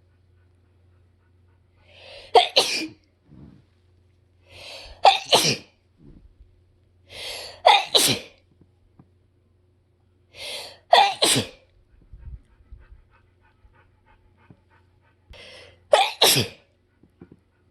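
A harsh sneezing fit, set off by freshly mowed grass: five loud sneezes a few seconds apart, each with a quick in-breath just before it.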